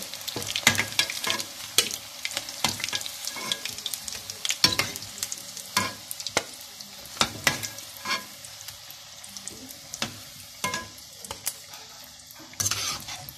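Breaded potato balls deep-frying in hot oil: a steady sizzle with frequent sharp crackles. A metal spoon knocks in the pan as the browned balls are lifted out.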